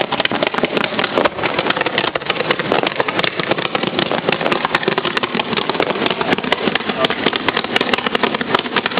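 Fireworks going off in a dense, steady crackle of many small sharp reports a second.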